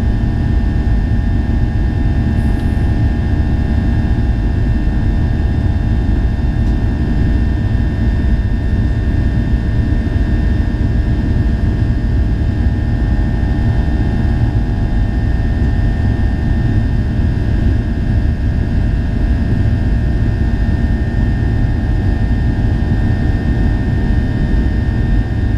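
Steady cabin noise of a Boeing 737-800 in flight: a constant low rumble of airflow and its CFM56 jet engines, with several steady hums laid over it.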